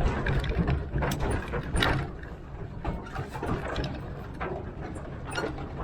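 Small 0-4-0T tank steam locomotive working slowly up a grade: a low steady rumble with sharp knocks and clanks repeating irregularly, roughly every second.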